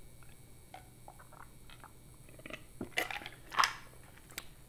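Close-miked drinking from a glass: soft swallowing and mouth clicks, then two louder brief sounds about three seconds in as the glass comes away from the mouth.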